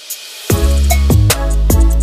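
Background music: a rising hiss swells up, then a heavy bass and drum beat comes in about half a second in.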